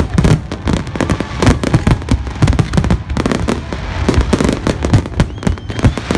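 Fireworks display: a dense, continuous barrage of shell bursts, many bangs a second mixed with crackling.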